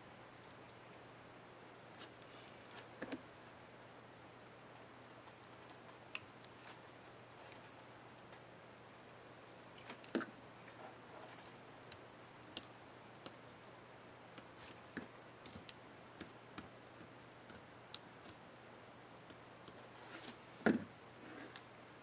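Small plastic clicks and taps of an HP Mini 5101 laptop keyboard's scissor-mechanism clip being handled and snapped into place at the Caps Lock key, scattered and irregular, with the loudest snap near the end.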